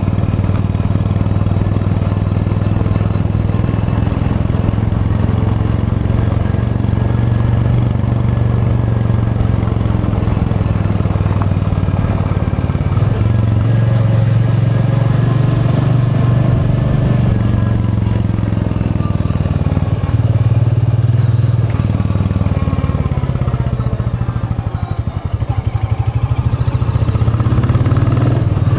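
Royal Enfield Bullet 350's single-cylinder engine running under way, its note rising and falling with the throttle. It eases off briefly about three-quarters of the way through, then picks up again with a rising pitch near the end.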